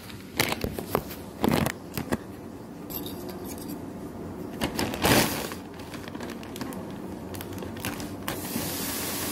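Plastic grocery packaging rustling and crinkling as it is handled, with scissors cutting open a clear plastic bag; a louder rustle comes about five seconds in.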